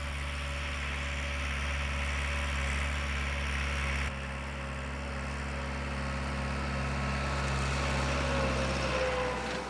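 Tractor engine running steadily with a low, even drone. The level dips abruptly about four seconds in, then runs on.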